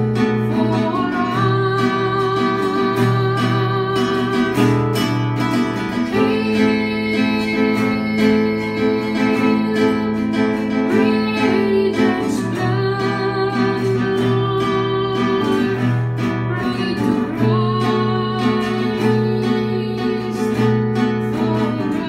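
A Neocatechumenal Way hymn: a voice singing with vibrato over a strummed acoustic guitar.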